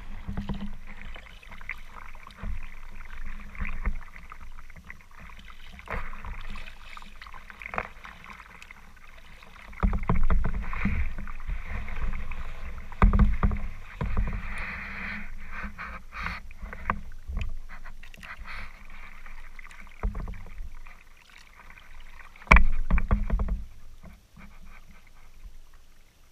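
Kayak on choppy water: a continuous wash of paddle and wave splashes, with several heavier low thumps of water against the boat, the loudest about 22 seconds in.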